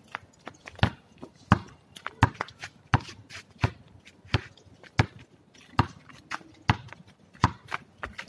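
A basketball is dribbled on a concrete court, bouncing at a steady pace of about one bounce every 0.7 seconds.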